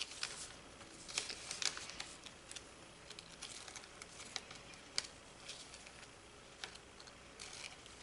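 Hands handling a model rocket's plastic parachute and shroud line while tying the line to a tape disc: soft crinkling of the plastic sheet with scattered light clicks and ticks.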